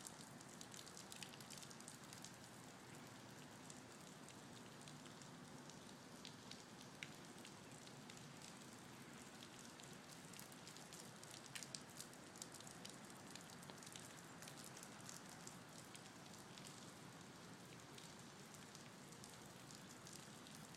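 Near silence: a faint steady outdoor hiss with scattered small ticks, typical of light rain or dripping.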